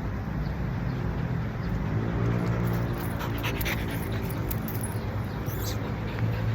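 A dog panting and whimpering over a steady low hum.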